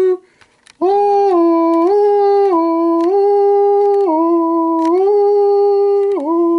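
A person humming a slow tune in long held notes that step up and down between a few pitches, with a short break about half a second in.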